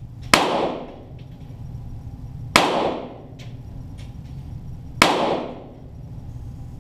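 Three single shots from a .22 Walther GSP target pistol, a little over two seconds apart, each ringing briefly off the range walls. Fainter clicks come between the shots.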